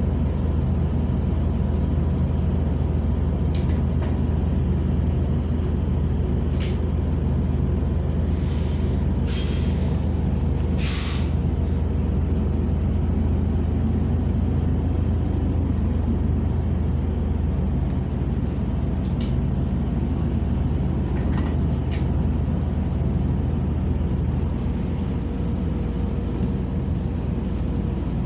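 Inside a New Flyer XN40 natural-gas city bus under way: a steady engine and drivetrain drone, with scattered clicks and rattles and short hisses of compressed air between about eight and eleven seconds in.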